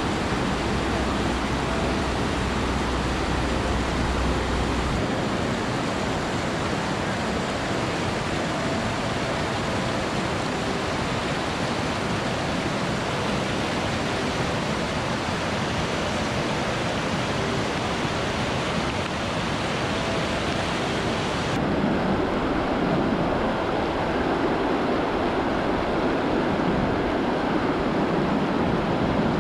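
The Beas River rushing over boulders in shallow white-water rapids: a steady, even rush of water. About three-quarters of the way through, the sound changes abruptly to a duller, deeper rush.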